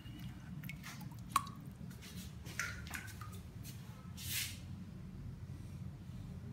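Water dripping and splashing from a small aquarium fish net as it is lifted out of a bucket of water, with a sharp tap about a second and a half in, then a short splash about four seconds in as the net is dipped into a plastic tub.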